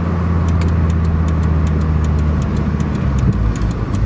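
Car engine running, heard from inside the cabin, a steady low hum whose note drops and turns rougher about three seconds in. Faint quick ticks run over it.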